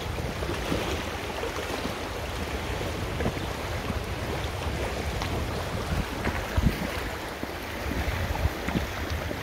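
Fast-flowing river water rushing around an inflatable kayak, with wind buffeting the microphone as a low rumble. A couple of louder splashes stand out about six and a half seconds in.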